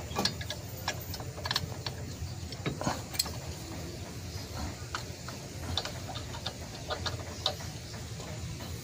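Irregular light metallic clicks and ticks of a wrench and loosened bolts being worked on a car's front disc-brake caliper, as the caliper bolts are taken out.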